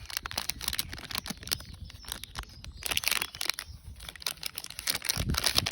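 Plastic packaging crinkling and rustling in the hands as it is unwrapped, a dense run of quick irregular crackles with louder bursts around three seconds in and near the end.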